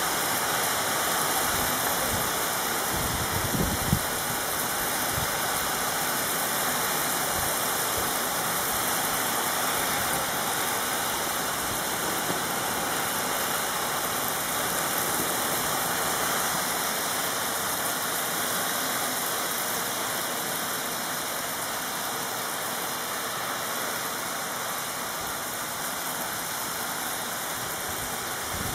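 Small hail and graupel falling steadily, a dense even hiss of ice pellets striking roofs and the ground. There are a couple of low bumps about four seconds in, and the hiss eases slightly in the second half.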